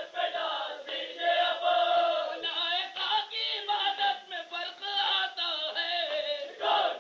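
An Urdu noha, a Shia mourning lament, chanted by voices in drawn-out sung lines.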